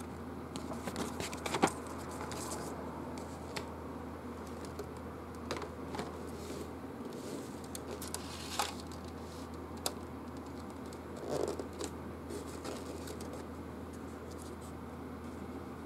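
Handling noise as a paper instruction booklet is handled and a replica game board is lifted out of its cardboard box: scattered rustles, scrapes and small knocks. A steady low hum sits underneath.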